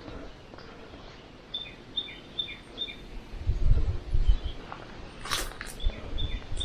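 A bird calling outdoors, a short high note repeated about four times in quick succession and again twice near the end. Low thumps and rumbling come in the middle, with a sharp click about five seconds in.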